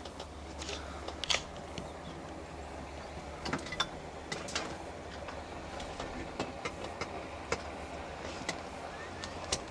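Quiet ambience aboard a moored sailing yacht: a low steady hum with scattered light clicks and ticks, the loudest about a second in and around three and a half seconds in.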